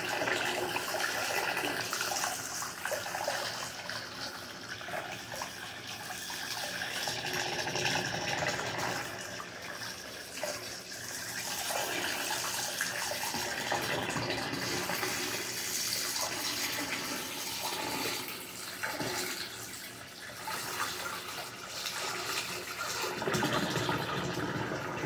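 Running water, splashing steadily with a level that rises and falls over the seconds.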